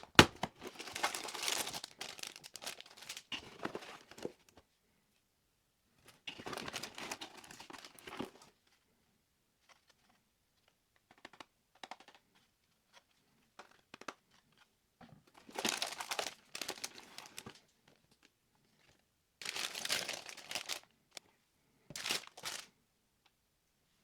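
LEGO set packaging being torn open and crinkled by hand, in several bursts with quiet gaps and small ticks between them, starting with a sharp click.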